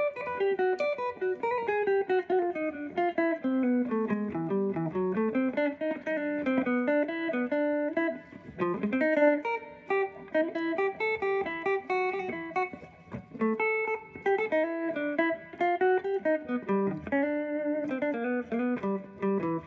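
Guitar picked solo, a steady stream of quick single notes running up and down in melodic lines, with a few short pauses.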